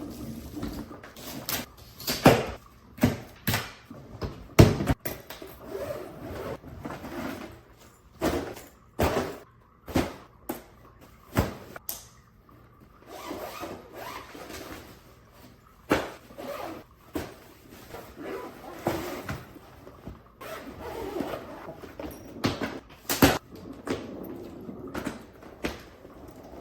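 A string of sharp, irregular knocks and clicks with rustling and scraping in between: objects being handled and moved about.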